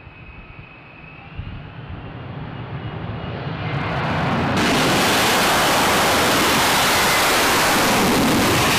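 F-35B Lightning II's Pratt & Whitney F135 turbofan taking off and climbing away. A high engine whine over a low rumble builds over a few seconds, and from about four and a half seconds in it becomes loud, steady jet noise that holds to the end.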